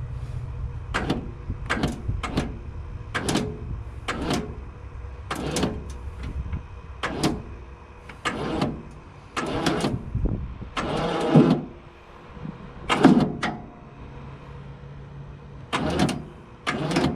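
A vehicle engine running low and steady, fading in the middle and returning, under a string of about fifteen short creaks and clunks spaced roughly half a second to a second apart; the loudest come around the middle.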